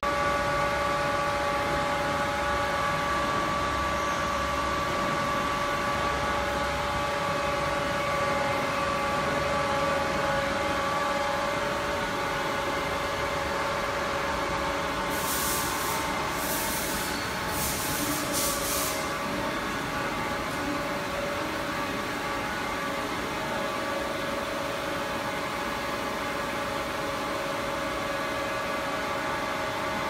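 Workshop machinery running steadily: a constant hum with a steady whine over it. About halfway through there are a few short hisses.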